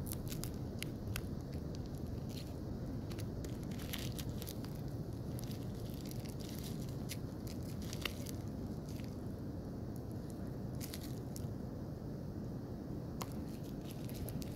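Red plastic wrap and tape crinkling and tearing in irregular crackles as it is peeled off the padded end of a rod package, over a steady low background rumble.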